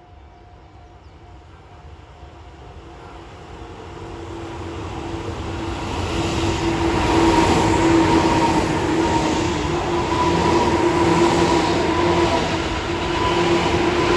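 Tobu 9000 series electric train approaching and passing, growing steadily louder over the first seven seconds and then staying loud, with a steady whine running through the rail noise.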